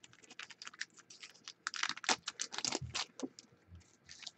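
Foil trading-card pack wrappers crinkling, and the cards clicking and sliding against each other as a pack is opened and handled: a run of quick crackles and clicks, busiest in the middle.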